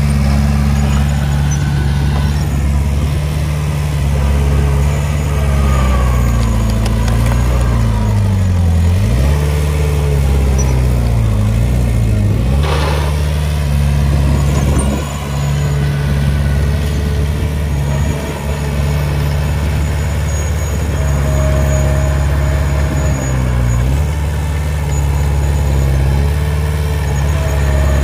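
Komatsu D20P crawler dozer's diesel engine running hard, its note sagging and recovering several times as the blade loads up, with a sharp knock about twelve seconds in.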